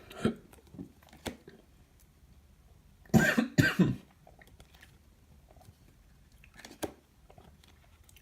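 A man coughing twice in quick succession about three seconds in, with a few faint clicks around it.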